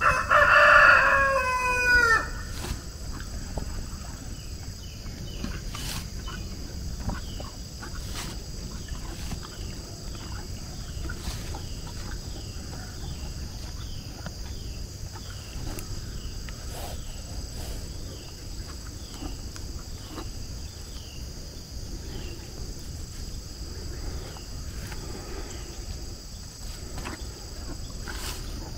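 A rooster crows once, loud and about two seconds long, its pitch dropping at the end. After it a steady high insect drone carries on, and a bird repeats short falling chirps for much of the rest.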